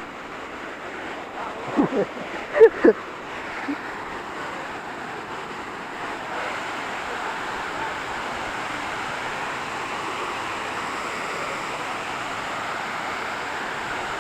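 Steady rush of a waterfall's falling water, getting a little louder about six seconds in. A few short voice-like sounds come about two and three seconds in.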